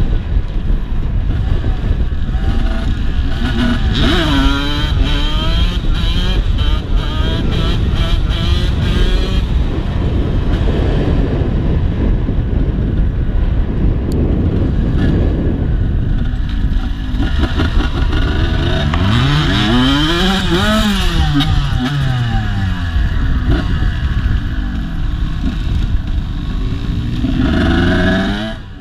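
Dirt bike engine running under way, its pitch rising and falling with throttle and gear changes, over a steady rumble of wind on the microphone. The sound fades out near the end.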